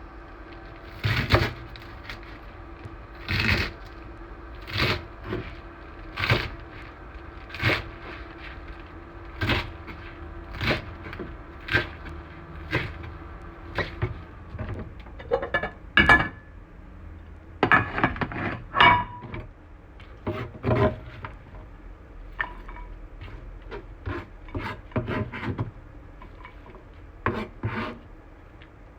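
Kitchen utensils knocking and scraping again and again, roughly once a second at first and busier in the middle, over a steady machine hum.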